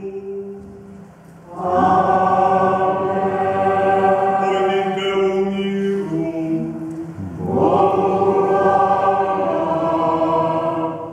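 Church choir singing a liturgical response: two long held phrases, the first beginning about two seconds in and the second about seven seconds in, ringing in the church's reverberant space.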